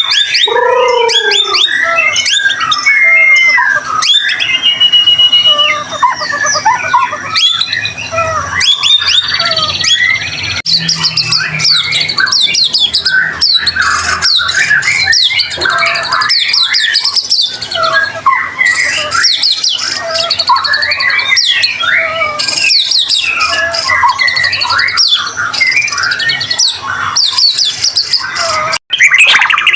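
White-rumped shama (murai batu) singing without pause: a rich, fast stream of varied whistles, trills and chattering phrases, broken by a very short dropout near the end.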